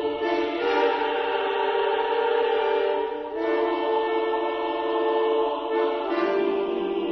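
Background music of held, choir-like chords that change about every three seconds.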